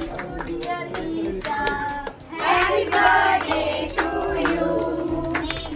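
A group of adults and children singing together while clapping their hands, the singing swelling louder a little past halfway.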